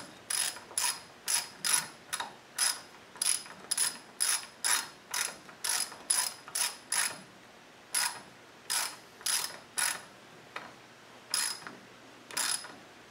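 Hand socket ratchet clicking in short, even back-strokes, about two a second, with two brief pauses, as a thread-locked grub screw is run in on a Land Rover transfer box linkage arm.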